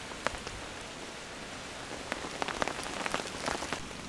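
Rain falling on a camping tarp: a steady hiss with scattered sharp drop hits, which come more often in the second half.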